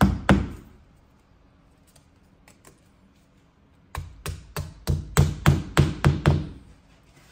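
Sharp knocking strikes at about three a second: two at the very start, then a run of about nine from about four seconds in.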